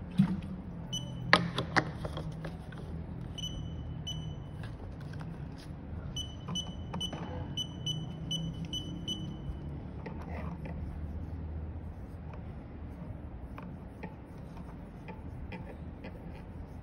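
Short electronic beeps from a phone LCD screen tester as its buttons are pressed, with a run of about three beeps a second in the middle, along with a few sharp clicks near the start. Later, light finger taps and ticks on the glass of a replacement phone screen during a touch test.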